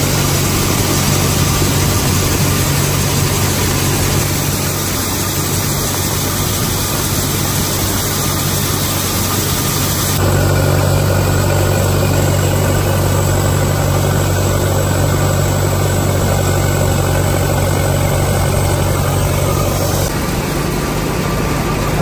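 Gleaner F2 combine running with its unloading auger turning, a steady heavy machine drone while shelled corn pours from the auger spout into a wagon. The sound shifts abruptly twice, about ten seconds in and near the end.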